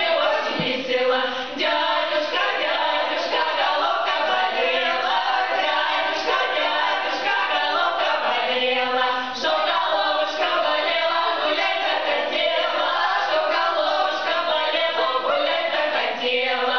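A women's vocal ensemble singing an old Russian polyphonic folk song a cappella, several voice parts weaving in and out of one another.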